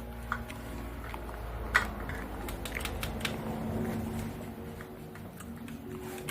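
Scattered light clicks and taps of hand work with small tools on an electrical fitting, over faint steady background tones.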